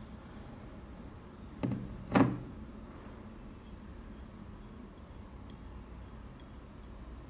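Two sharp knocks about half a second apart, the second the louder, then a toothbrush scrubbing paste over the hood of a small model pickup body, a faint repeated scratching.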